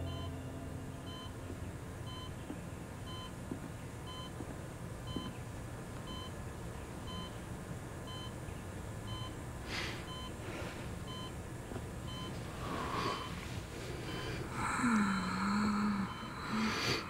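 Bedside patient monitor beeping steadily, a short beep about once a second, tracking a dying patient's heartbeat. Near the end come a few breathy sounds and a brief low voiced sound.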